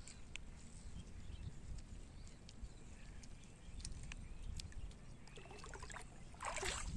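Faint outdoor background with a low rumble and a few small clicks. Near the end comes a louder scraping rustle as a woven bamboo fish trap is gripped and lifted off the dirt bank.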